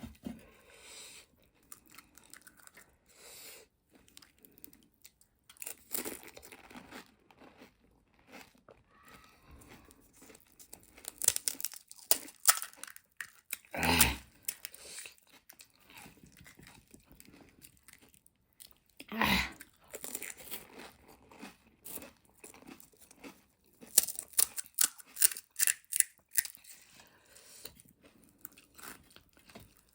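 Close-up crunching and chewing as crisp pani puri shells are bitten and eaten, many short crackly crunches one after another, with two louder bites near the middle.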